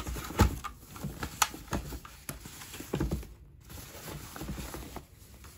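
A keyboard's packaging being opened and handled by hand: scattered knocks and taps with rustling, busiest in the first three seconds, then quieter handling.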